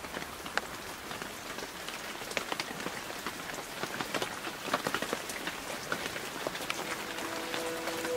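Steady rain falling, with many individual drops striking hard wet surfaces.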